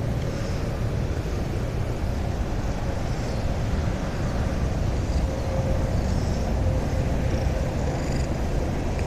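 Steady low rumble of wind buffeting the microphone, with faint high chirps in the background.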